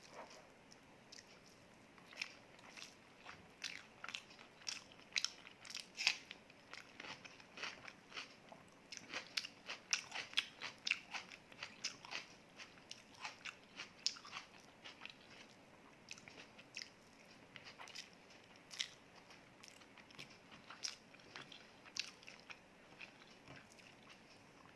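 Close-miked chewing of a meal: irregular crisp crunches and clicking mouth sounds, busiest in the middle.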